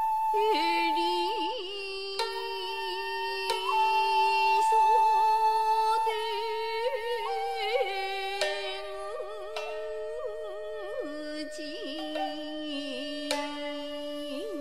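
Jiuta duet of shakuhachi and shamisen: the bamboo flute holds long tones with slow bends while the shamisen plucks sparse, sharp notes, and a voice sings long, bending phrases.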